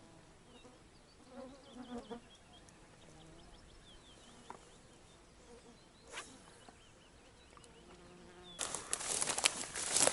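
A flying insect buzzing close by for about a second, roughly a second and a half in. Near the end, loud rustling and crackling takes over, louder than anything before it.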